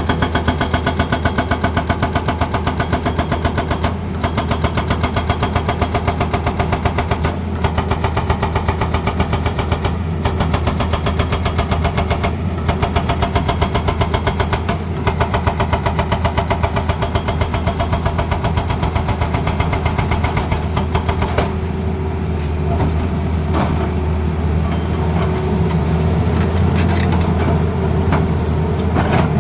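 Hydraulic breaker on a Tata Hitachi Zaxis excavator hammering in rapid, even blows over the running diesel engine. About 21 seconds in the hammering stops and the engine runs on steadily.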